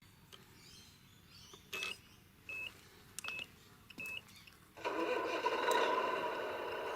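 Four short, even electronic beeps from a radio-controlled model's electronics, then a small electric motor and its gearing start up about five seconds in and run steadily with a whine.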